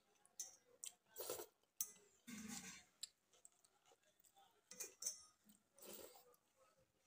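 Soft, scattered eating sounds: fingers squishing and mixing watery panta bhat (rice soaked in water) in a steel bowl, with a few short clicks and one longer wet swish. Mouth and chewing sounds come near the end as a handful is eaten.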